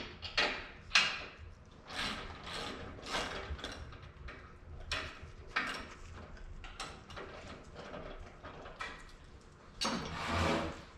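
Ratchet wrench working in repeated short clicking strokes as bolts on the sawmill head are tightened. Near the end there is a longer, louder rasp.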